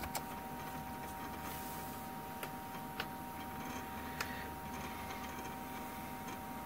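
SGI Indy workstation running as it boots: a steady machine hum with two faint high steady tones, broken by a few scattered sharp clicks.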